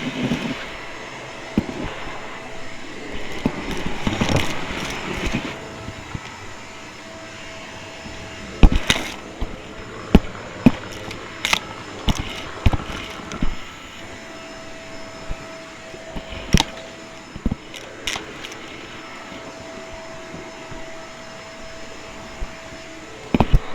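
Vacuum cleaner running steadily with a steady hum and whine, close to the microphone, broken by sharp clicks and knocks scattered throughout.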